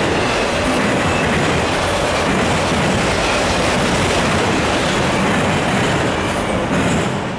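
Autorack freight cars rolling past at track speed, steel wheels running over the rails in a loud, steady noise. The noise falls off near the end as the last car passes.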